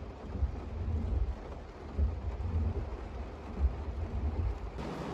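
Typhoon wind gusting in irregular low rumbling buffets over a steady hiss of rain; a brighter hiss comes in near the end.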